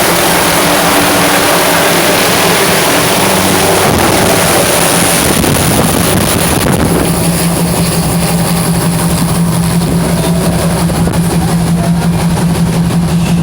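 Fishing boat's engine running steadily under way, with wind and water hiss over it. About six seconds in the hiss drops back and a steady low engine hum comes forward.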